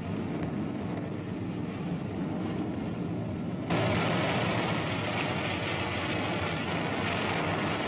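Propeller fighter planes droning steadily in flight, the sound effect for a formation of Nakajima Ki-43 Hayabusa fighters. About four seconds in it turns louder and brighter, as if heard from close by the cockpit.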